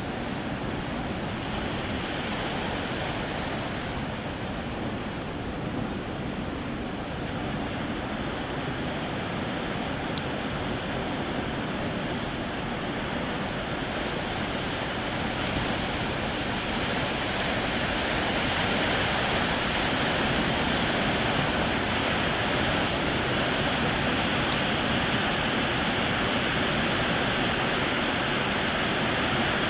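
Ocean surf breaking at a river-mouth sandbar: a steady rush of waves that grows a little louder about halfway through.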